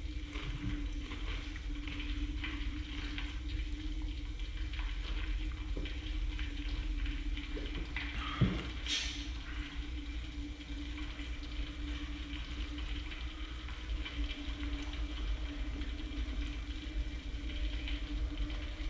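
Hot cooking oil frying with a faint, steady crackle over a steady low hum, with a single knock about eight and a half seconds in.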